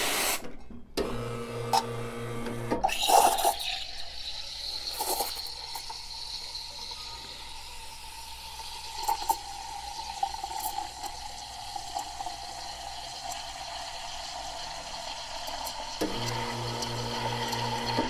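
Espresso machine steam wand steaming milk in a pitcher: a short loud blast of steam about three seconds in, then a steady hiss with a whistling tone. A low pulsing buzz comes from the machine near the start and again in the last two seconds.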